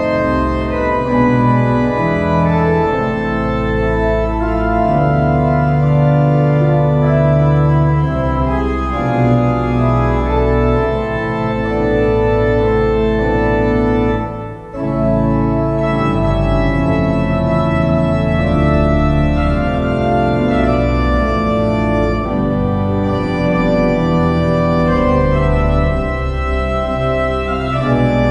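Church pipe organ playing, with sustained chords over deep pedal bass notes that change every second or two, and a brief break between phrases about halfway through.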